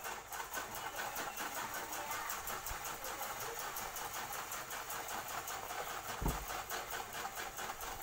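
Gasoline sloshing and the internal parts rattling inside a refrigerator's hermetic compressor as it is shaken hard by hand, ports stopped with fingers, in a fast, even rhythm. This is flushing black, contaminated oil out of the compressor. There is a low thump about six seconds in.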